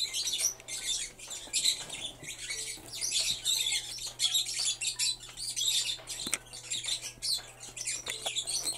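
Small plastic toy accessories clicking and rattling as they are handled and dropped into the compartments of a clear plastic organizer box, with quick irregular rustling throughout.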